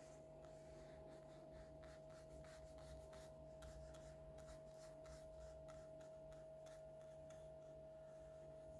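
Faint, soft strokes of a thin paintbrush laying green paint onto paper, a couple of strokes a second, over a steady faint hum.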